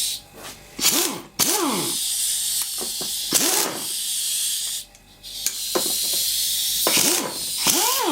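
Pneumatic tool run in short bursts: a loud hiss of compressed air that stops and starts, with the air motor's pitch rising and falling as it spins up and down, and a worn quick-connect air fitting.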